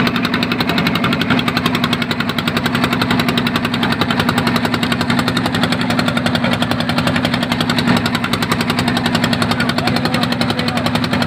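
Fishing boat's engine running at a steady speed, a rapid, even chugging.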